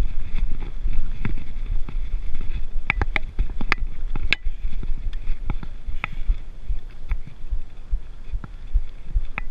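Mountain bike rolling over a rocky dirt trail: a steady low rumble of the tyres on the dirt, with the chain and bike rattling in sharp clicks over the bumps, a cluster of louder rattles about three to four seconds in.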